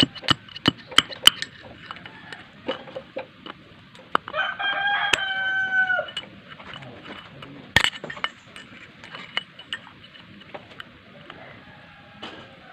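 Sharp clicks and knocks of scooter CVT parts being handled and fitted, a quick run of them at the start and one hard knock about eight seconds in. About four seconds in, a rooster crows once for about two seconds, its call dropping in pitch at the end.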